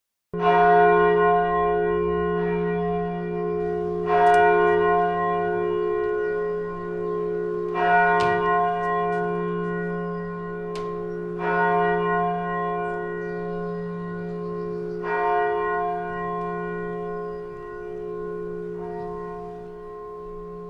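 Church bell tolling slowly: six strokes, about one every four seconds, each ringing on into the next.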